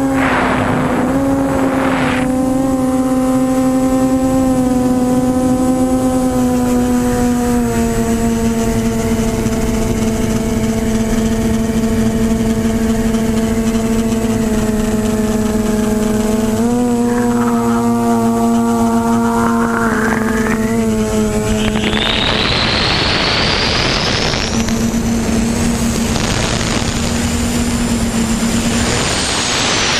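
QAV500 quadcopter's brushless motors and propellers humming steadily, the pitch stepping up and down a little with throttle changes. About two-thirds of the way through a loud rushing noise joins, with a high whine climbing in pitch, fading out near the end.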